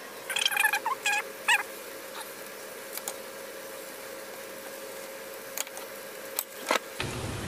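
Poultry calling in the background: a quick run of about five short, pitch-bending calls in the first second and a half. After that only a few faint clicks are heard over a steady low hum.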